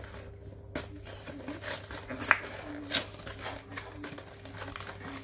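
Cardboard toy box being opened by hand: flaps pulled and the packing inside rustled, with irregular crinkles and two sharp clicks about two and three seconds in, over a steady low hum.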